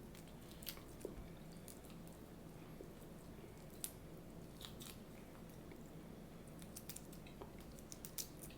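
Close-up eating sounds: a person chewing and biting food from a seafood boil, with scattered small sharp clicks and crackles, several near the end, over a faint steady low hum.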